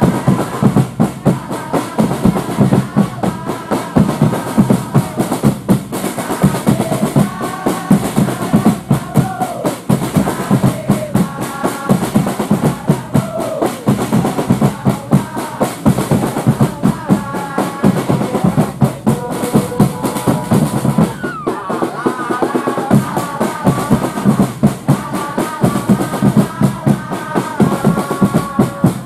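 Football supporters' group singing a chant together over fast, steady drumming.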